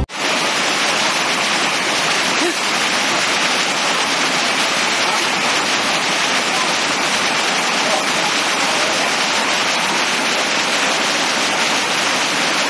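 Heavy downpour: a steady, even hiss of rain falling hard onto standing floodwater.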